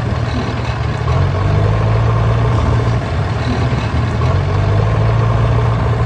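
Diesel tractor engine running steadily with a low, even chug.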